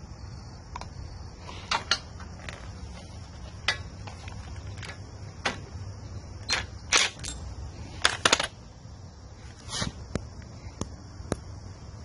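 Clicks, clinks and short knocks of hand tools and metal fittings being handled while a compression tester's hose is fitted to a riding mower engine. A few louder short bursts come about seven and eight seconds in.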